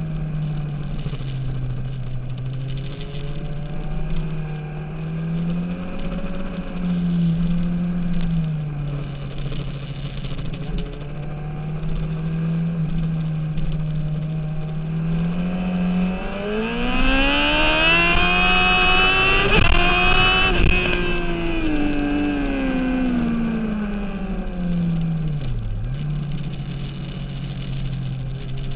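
Sport motorcycle engine heard from an on-bike camera on a race track, holding fairly steady with small shifts in pitch, then rising sharply in pitch as the bike accelerates about halfway through before falling away again, over a constant rush of wind.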